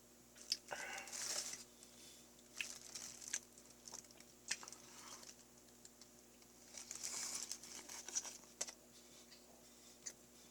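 Close-up eating noises of a mashed Choco Pie and milk dessert: scattered sharp clicks and smacks, with two longer noisy stretches about a second in and about seven seconds in.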